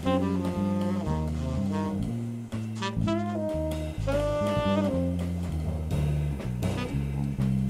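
Jazz trio of tenor saxophone, electric bass and drum kit playing a fast-moving tune. The saxophone runs through quick phrases and holds one longer note about halfway, over a walking bass line and cymbal-driven drums.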